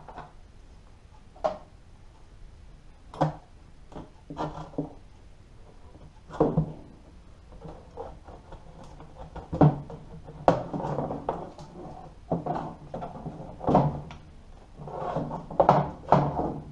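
The rear change-gear cover of a lathe headstock being worked loose and lifted off the machine: a run of irregular clunks and knocks, with short scraping stretches as the cover is juggled free, loudest near the end.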